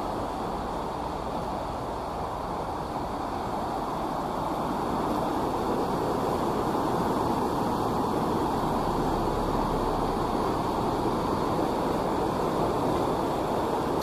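Fast mountain river rushing over white-water rapids: a steady rush of water that grows louder about five seconds in.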